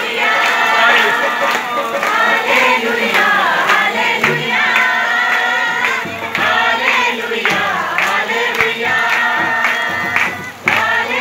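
Congregation singing a Christian worship song together at full voice, with a steady beat.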